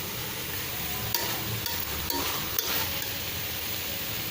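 Vegetables frying in a thick masala in a pan, sizzling steadily, while a spoon stirs them, with a few sharp clicks of the spoon against the pan.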